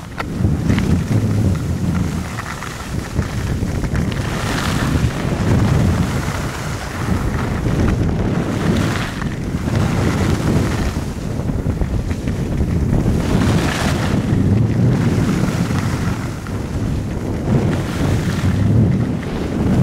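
Wind buffeting the microphone during a downhill ski run, a heavy gusty rumble. Every four or five seconds a hiss swells, skis scraping across snow through a turn.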